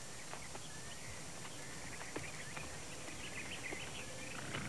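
Quiet outdoor ambience: a steady hiss with faint, scattered bird chirps and a few soft ticks.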